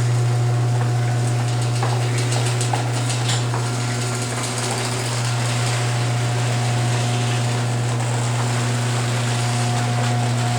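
Chamberlain HD200D chain-drive garage door opener, converted to a T-rail, running the door through its travel: a steady motor hum with light clicking and rattling in the first few seconds.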